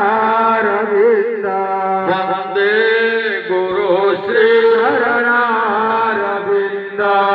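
Devotional chanting sung as a melody over a steady, held drone.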